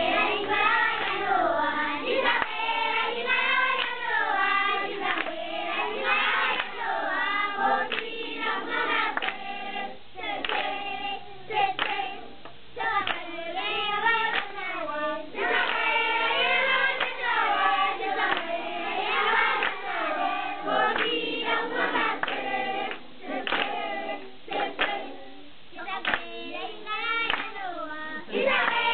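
A group of children singing together, with hand claps in time with the song.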